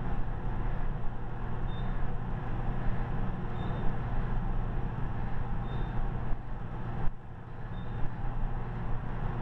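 Elevator car riding with its doors shut: a steady low hum under a rushing ride noise, with faint short high beeps about every two seconds. About seven seconds in the noise drops suddenly, then builds back up.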